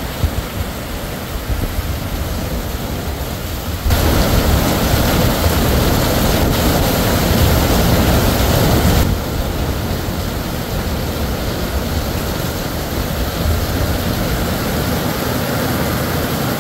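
Heavy tropical downpour: a steady rush of rain pouring onto roofs and pavement. For about five seconds, starting around four seconds in, it grows clearly louder, then settles back.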